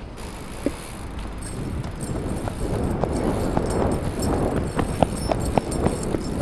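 Running footfalls on packed dirt, picked up through a hand-held, pole-mounted GoPro as its carrier sprints. The noise grows louder about two and a half seconds in, with quick regular thuds, roughly two to three a second, over a rushing of wind and handling noise.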